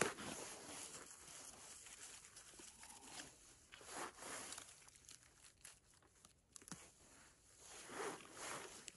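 Dry fallen leaves and moss rustling and crackling softly as wild mushrooms are plucked by a gloved hand, in a few short scrapes, after a sharp knock at the very start.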